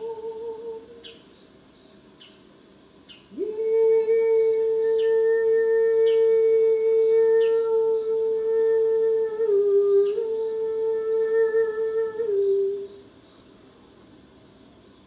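Ambient soundtrack: a long held pitched tone slides up into pitch about three seconds in, dips slightly near ten seconds and stops at about twelve and a half seconds, over faint ticks about once a second.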